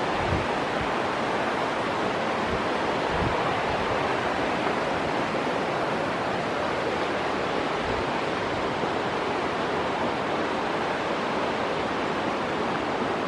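Steady rushing of a river's fast white water, heard from the trail above it. A few soft low bumps come in the first few seconds and again near the middle.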